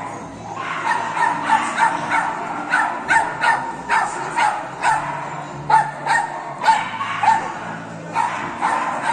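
A dog barking over and over in quick succession, two or three barks a second, with a brief lull near the end.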